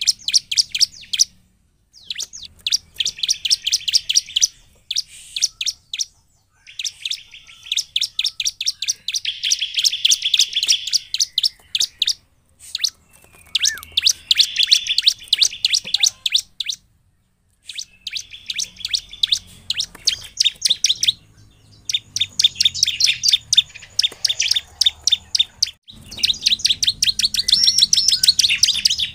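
Caged bar-winged prinia (ciblek) in full song: rapid runs of sharp, high chirps delivered in bouts of a few seconds, with short pauses between bouts.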